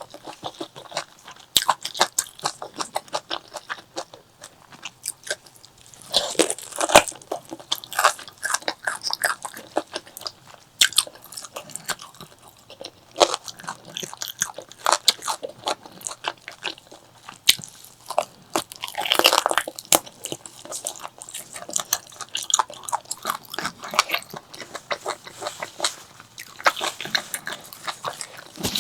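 Close-miked eating of spicy pork leg curry: continuous chewing and biting with many quick, irregular wet clicks and crunches, thickening into denser bouts about six seconds in, around nineteen seconds and near the end.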